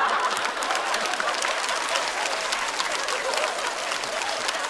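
Studio audience applauding a stand-up comedian's punchline, many hands clapping together, slowly dying down.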